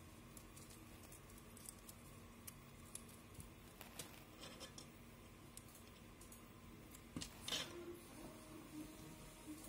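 Faint handling sounds of strips of adhesive tape and their paper backing being peeled and pressed down by hand: scattered small ticks, with one brief scratchy rustle about seven and a half seconds in.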